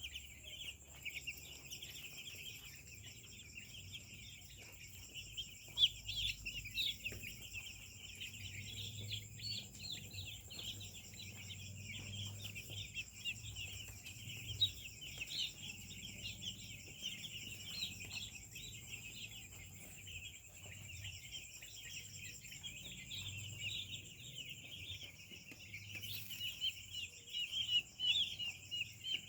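A poultry flock calling without pause: a dense chorus of many overlapping high-pitched peeps and clucks, a little louder near the end.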